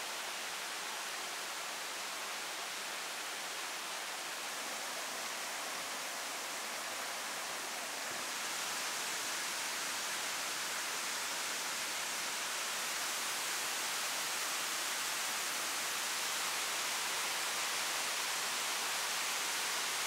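Steady rush of flowing water heard as an even hiss, a little louder from about eight seconds in.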